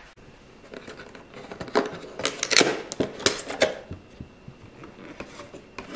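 A white paperboard cake box being handled and opened: a quick run of light, irregular clicks and papery rustles through the middle, quieter handling either side.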